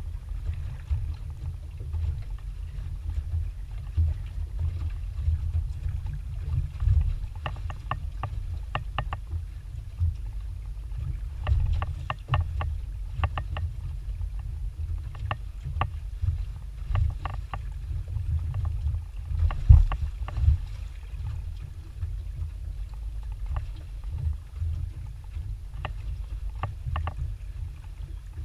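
Low wind rumble on the microphone in a small aluminium boat, broken every few seconds by short bursts of light ticks and taps.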